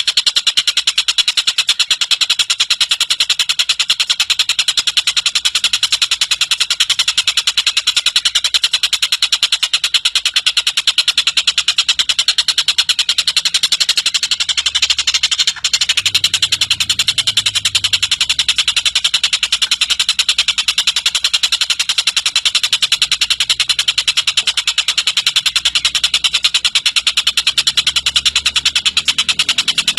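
A tengkek buto bird giving a long, very rapid chattering call, notes packed tightly together in an unbroken run, with one very short break about halfway through.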